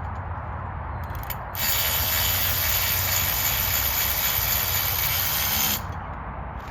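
Ratchet wrench being worked on a bolt of the frame: a fast, continuous clicking that starts about a second and a half in, runs for about four seconds and stops abruptly.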